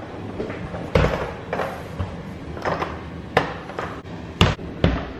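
Toilet stall door being shut and its metal latch worked by hand: several sharp clacks and knocks spread through a few seconds.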